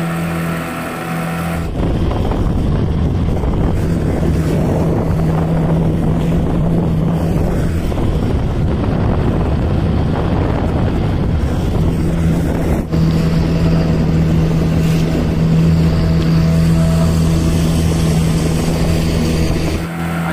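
A small fishing boat's outboard motor running steadily at cruising speed, with the rush of wind and water growing louder about two seconds in and a momentary break around thirteen seconds.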